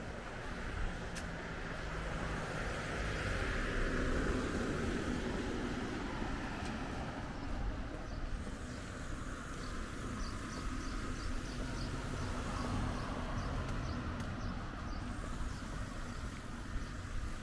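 A road vehicle passing by, rising and fading about four seconds in, over steady low street rumble.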